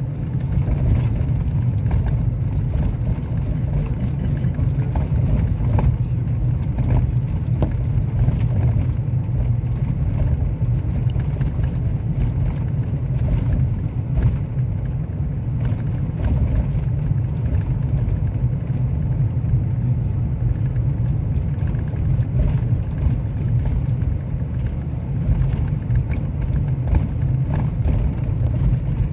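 Steady low rumble of a road vehicle in motion, heard from inside: engine and tyre noise at a constant speed.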